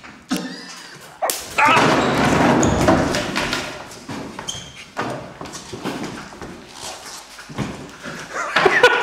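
A sharp crack about a second in, then a man yelping and crying out in a loud wavering voice for a couple of seconds, with scattered knocks and another cry near the end: his reaction to an electric fly-swatter's shock on his nose.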